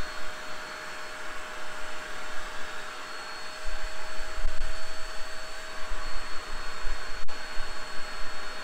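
Vax SpotWash Duo carpet spot cleaner running: a steady motor rush with a constant whine as its hand tool is worked over a carpet floor mat. It gets louder, with a deeper rumble, from about four seconds in.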